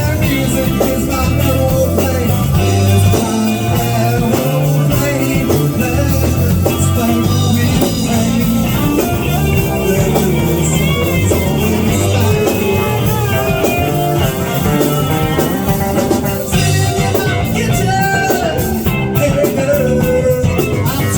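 Rock music with electric guitar, bass and drums, and some singing.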